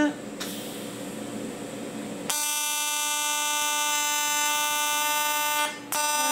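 AC TIG welding arc on aluminium, struck about two seconds in and then buzzing with a steady high-pitched tone at an AC frequency of roughly 300 Hz. The arc cuts out briefly near the end and strikes again.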